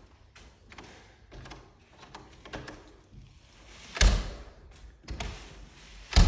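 Interior door and its newly fitted latch hardware being worked: a series of small clicks and taps, with two louder knocks about four and six seconds in.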